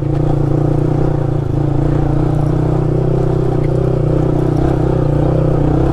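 Yamaha R15 V3's 155 cc single-cylinder engine running steadily under load in second gear at low speed.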